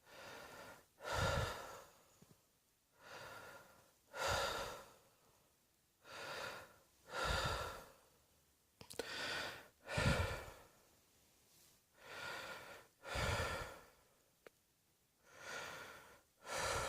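A person breathing audibly and slowly: about six breath cycles, each a softer breath followed a second later by a louder one, at roughly one cycle every three seconds.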